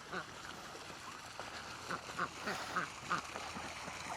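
Ducks quacking, a run of short faint quacks repeating about three times a second.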